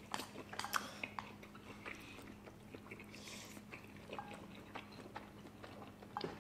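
Quiet chewing and small mouth clicks while eating spicy instant noodles, with a slurp of noodles about three seconds in.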